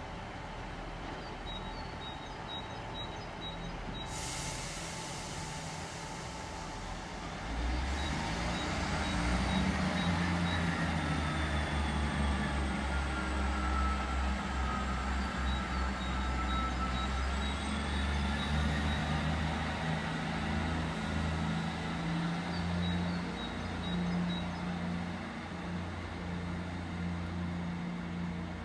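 Class 158 Express Sprinter diesel multiple unit pulling away: a hiss of released air about four seconds in, then its underfloor diesel engines open up about eight seconds in and run hard as it accelerates, with a high whine that falls and then rises again.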